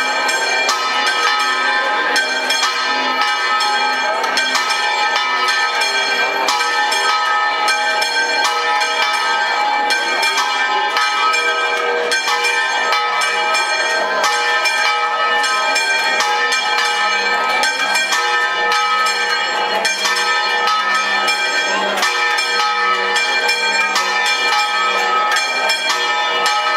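Church bells ringing a fast, continuous peal, strokes following one another several times a second over long overlapping ringing tones.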